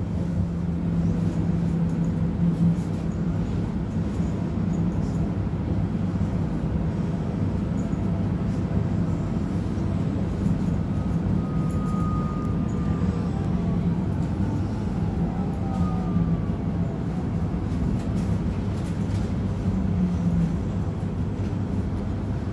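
Steady rumble and hum inside a Z 50000 electric multiple unit as it runs, with faint whistling tones falling in pitch about halfway through.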